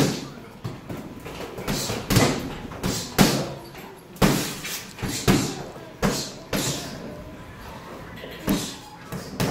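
Boxing punches landing on a double-end bag and on padwork mitts: sharp thuds and slaps, about one or two a second at an uneven pace.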